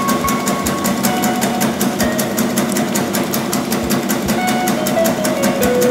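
Meatball forming machine running with a fast, even mechanical clatter, about five strokes a second, as the forming head cuts off balls of meat paste. Background music with a stepping melody plays over it.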